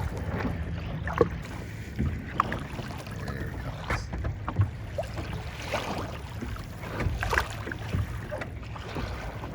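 Wind buffeting the microphone and water moving against a Sunfish sailing dinghy's hull, a steady low rumble broken by scattered light knocks from the boat.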